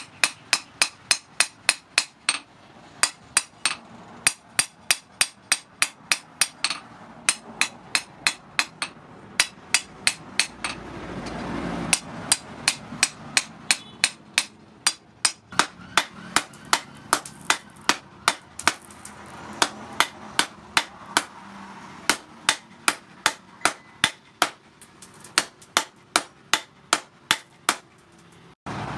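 Hand hammer striking red-hot steel rebar on a steel post anvil: sharp metal-on-metal blows, about three a second, in runs with short pauses, as the rebar is forged into tong jaws.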